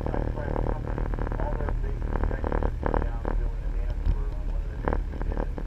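The jet boat's triple Cummins marine diesel engines run with a steady low drone, with people's voices faintly over it.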